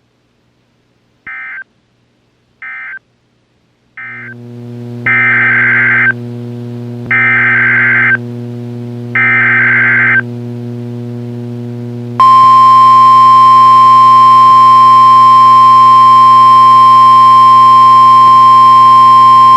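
NOAA Weather Radio test tones: three short data bursts, then over a steady electrical hum three loud one-second bursts of SAME digital header data about two seconds apart. After them comes a loud single steady tone, the 1050 Hz weather radio warning alarm tone that switches on listening receivers.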